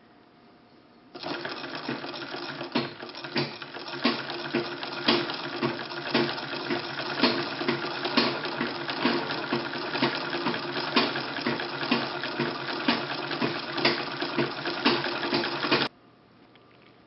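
1894 Singer sewing machine running to wind a bobbin: a fast mechanical whirr and rattle with a regular clatter of clicks, the strongest about once a second. It starts about a second in and stops abruptly near the end.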